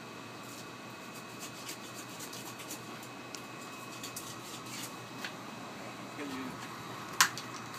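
Long knife cutting through a whole bigeye tuna, with faint irregular scrapes and clicks of the blade against bone and the cutting board, then one sharp knock about seven seconds in. Steady kitchen ventilation hum underneath.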